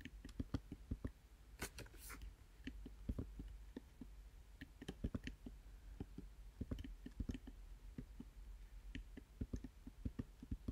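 Quiet, irregular clicking of a computer keyboard and mouse as letters are typed into spreadsheet cells one at a time, over a faint low hum.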